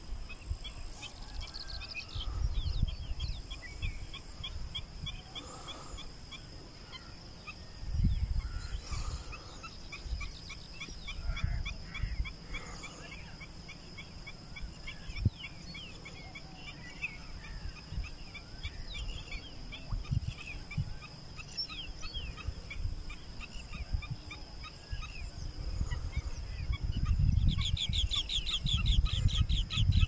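Many birds chirping and calling in quick short notes, with wind rumbling on the microphone in gusts. Near the end the calling gets denser and louder.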